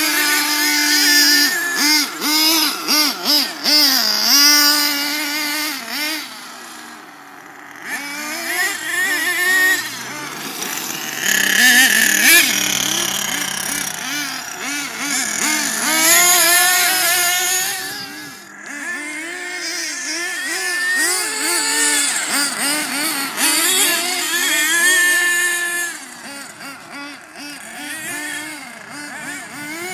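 Small nitro glow engines of radio-controlled monster trucks running at high revs. The pitch rises and falls constantly as the throttle is opened and eased off.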